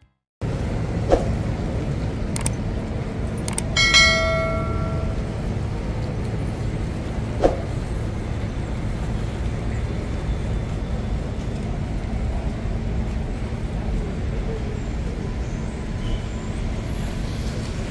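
City street traffic on a wet street: a steady low rumble of cars. There are a few short knocks, and a brief ringing tone about four seconds in.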